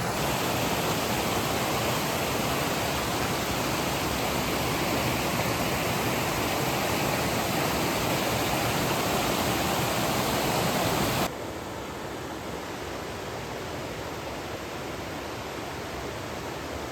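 Fast river water rushing over a small set of rapids, a steady hiss; about eleven seconds in it cuts abruptly to a quieter, steady river flow.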